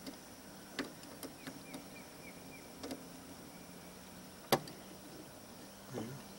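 Scattered metal clicks and taps of hand tools working on a boat's windshield wiper motor and arm mount, with one sharper click about four and a half seconds in, over a low steady hum.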